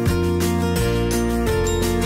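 Background music with a steady beat and a bass line that changes note about every three-quarters of a second.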